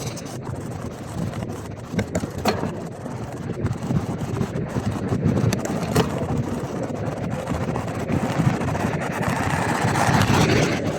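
Wind rushing over the microphone of a cyclist riding a gravel bike into a headwind, with a few small knocks. The noise swells louder over the last few seconds.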